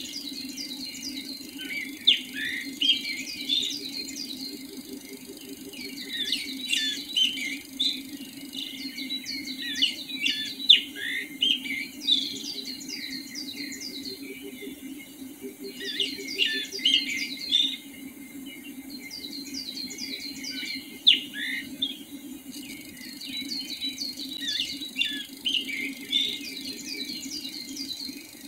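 Several songbirds singing in a predawn chorus: bouts of quick, high chirps and short downward-sweeping notes, with brief lulls between bouts, over a steady low drone.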